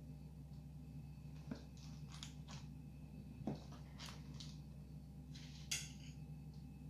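A metal spoon scraping and tapping in a cardboard pastry box as pastries are scooped out: a few light, separate clicks and scrapes, the sharpest about six seconds in, over a steady low hum.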